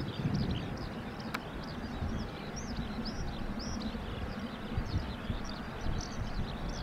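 Small birds chirping over and over, high-pitched, above a low rumble of wind on the microphone, with one sharp click about a second and a half in.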